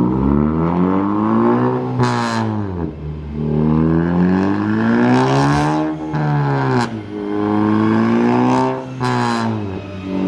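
Big-turbo Ford Focus ST's turbocharged 2.0-litre four-cylinder EcoBoost engine revving hard on a chassis dyno, climbing in pitch three times and dropping back as it shifts up through the gears, with a short whoosh of turbo air near each drop.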